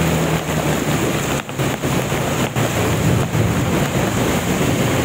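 Heavy rain and wind noise on the microphone over the steady low drone of a vehicle engine, with water splashing as the vehicle drives through a flooded street.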